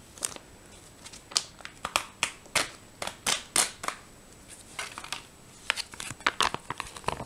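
Crinkling and rustling of a foil ration retort pouch being handled: an irregular string of short, sharp crackles, busiest a few seconds in and again near the end.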